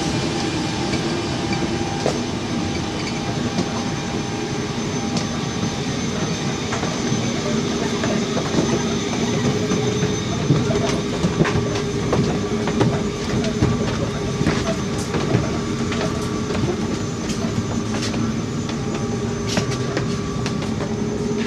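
Steady mechanical hum and rumbling noise inside an Airbus A380 prototype's cabin, with scattered clicks and knocks throughout.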